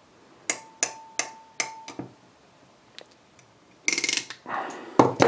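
Ratcheting crimping pliers clicking through their ratchet as the handles are squeezed to crimp an insulated butt connector onto stranded speaker wire: four sharp clicks about a third of a second apart with a faint ring between them, then a few softer ticks. A short, louder rasp follows near the end.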